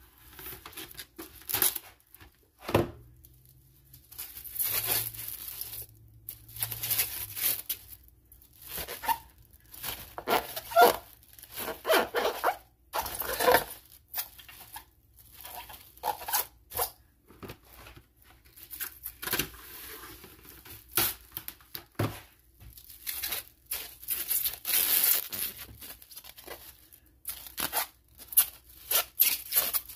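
Plastic cling wrap being pulled, torn and crinkled as it is stretched over a mixing bowl and pressed down around the rim. It comes as many short, irregular crackles.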